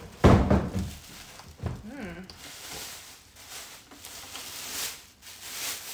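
A heavy thump as the emptied cardboard box is set down about a quarter second in, followed by plastic bag crinkling and rustling, in several bursts, as the electric unicycle wrapped in it is handled.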